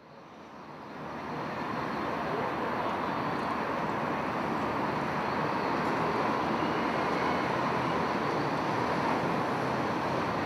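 Steady road-vehicle noise, an even rush that fades in from silence over the first couple of seconds and then holds level.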